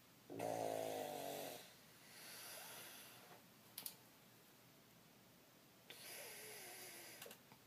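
A man snoring in his sleep: a loud snore, then a softer breath out, a short click, and about five seconds after the first another snore with a falling pitch.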